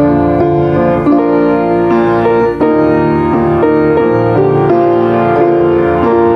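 Keyboard playing slow, sustained chords.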